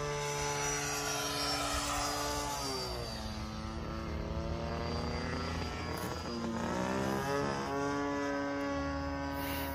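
Hanger 9 Cirrus RC model airplane's motor and propeller droning as it flies overhead. The pitch drops about three seconds in and rises back up around seven to eight seconds as it manoeuvres.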